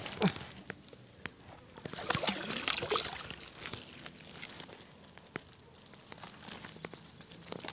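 Rustling of dry leaves and brush with scattered small clicks and knocks from handling gear, louder about two to three seconds in.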